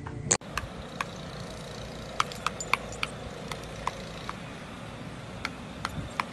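A brief loud knock, then a run of irregularly spaced sharp clicks, about fifteen in all, over a steady background hiss.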